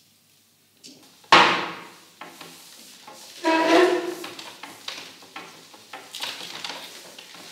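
A glass set down hard on a wooden table about a second in, then the clinking and clattering of glassware and crockery being handled, with a few smaller knocks after.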